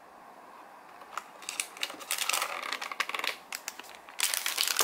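Packaging crinkling: a cardboard ice-bar box being handled and a plastic-wrapped ice pop pulled out of it. Irregular crackles start about a second in, with the loudest burst near the end.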